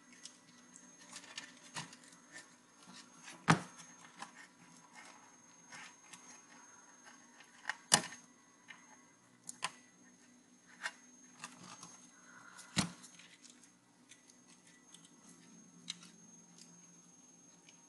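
Irregular clicks and knocks of an internal CD-ROM drive's circuit board and plastic casing being handled and pried apart by hand, with three sharper knocks about three and a half, eight and nearly thirteen seconds in.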